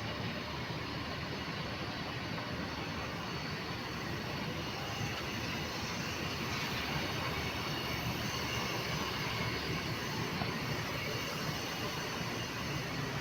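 Steady engine noise, an even rumble and hiss with no distinct events.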